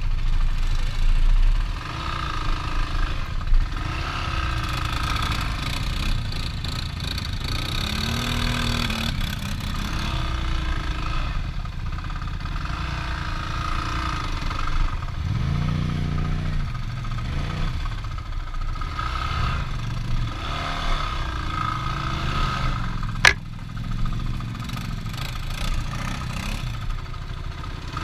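Vehicle engine running, its pitch rising and falling as it revs up and eases off several times, with a single sharp knock about 23 seconds in.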